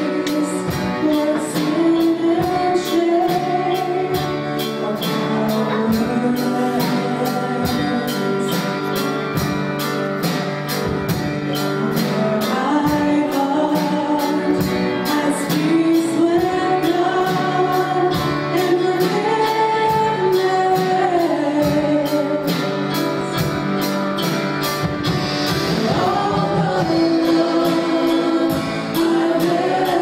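Gospel worship song: voices singing a melody together over a band with a steady drum beat.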